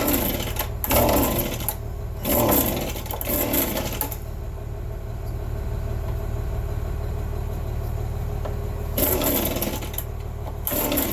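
Two-stroke chainsaw engine running after a cold start, revved up briefly several times in the first four seconds and again near the end, idling steadily in between.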